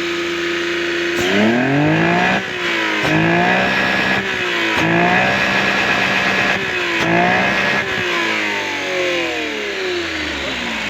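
Car engine idling, then revved up several times in quick blips before dropping back to idle near the end, now starting and running freely after its timing was reset: the wrong timing was the cause of its hard starting and lack of power.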